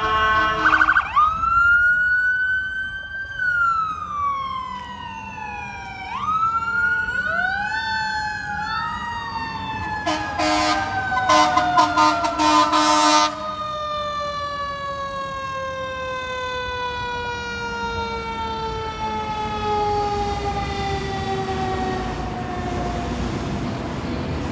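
Fire engine's siren wailing, rising and falling in pitch. About halfway through comes a run of loud air horn blasts lasting some three seconds, and the siren then winds slowly down in pitch.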